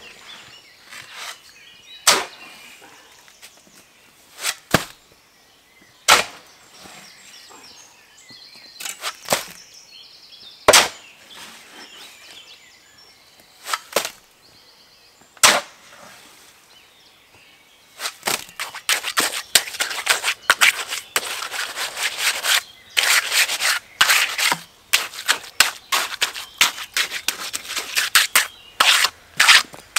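A shovel scooping wet concrete from a tractor's loader bucket, a sharp knock every couple of seconds. From about eighteen seconds in, a quick, continuous scraping as the fresh concrete is worked with a hand trowel.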